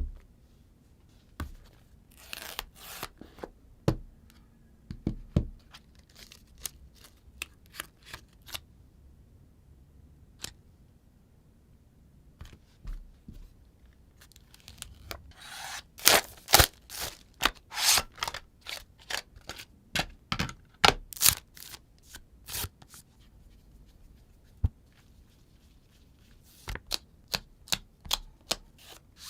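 Close-up handling of an iPhone box and its contents: the seal and plastic film peeled and torn, cardboard and plastic rubbing, and many sharp taps and clicks. There are scratchy stretches of peeling a few seconds in and around the middle, and a quick run of clicks near the end.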